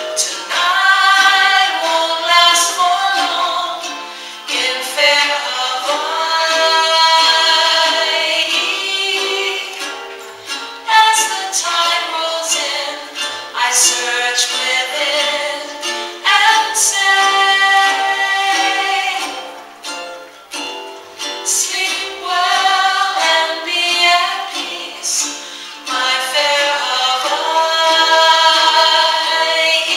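Music: a song with singing over a strummed accompaniment.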